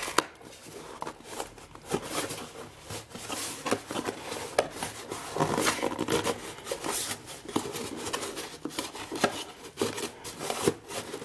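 A cardboard mailer box being torn and worked open by hand: irregular ripping, scraping and crinkling of cardboard, with short scratchy rips and clicks throughout.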